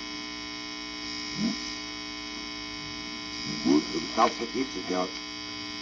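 Loud steady mains hum from the ungrounded turntable running through a cheap workbench amplifier. Twice, about 1.5 s in and again from about 3.5 to 5 s, brief stretches of unintelligible speech from the vinyl record break through as the modified Stanton turntable's speed and direction controls are worked.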